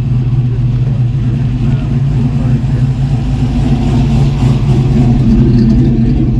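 Classic car engines running in a line-up, with a red mid-1950s Chevrolet driving slowly past close by. Its engine grows louder around four to five seconds in as it goes by.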